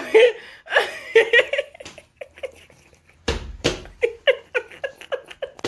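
A person laughing in short bursts, then giggling in quick repeated pulses. Two dull thumps come a little past the middle.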